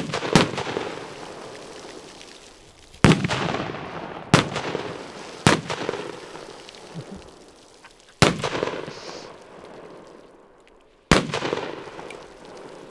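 Firecrackers going off in water: about seven sharp, loud bangs at irregular intervals, each trailing off over a second or two.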